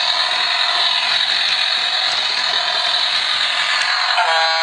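Battery-powered bump-and-go toy cruise ship playing its electronic sound effect through a small, tinny speaker: a steady, engine-like buzzing noise. About four seconds in it switches abruptly to a steady, buzzer-like tone.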